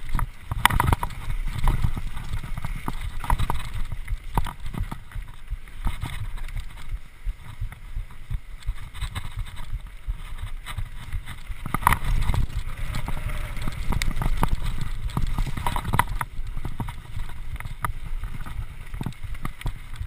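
Mountain bike descending rough rocky singletrack: a steady low rumble from the tyres on the ground, broken by frequent sharp knocks and rattles as the bike hits rocks and bumps.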